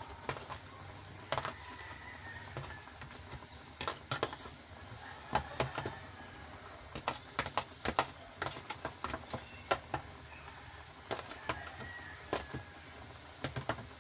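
Metal ladle tapping and scraping against a tray and the rim of a pot as chili leaves are pushed into boiling broth, giving irregular sharp clicks in little clusters over a low steady bubbling.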